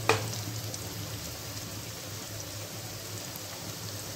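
Sliced onions and spice paste frying in hot oil in a karai, a steady crackling sizzle, with one sharp click just at the start.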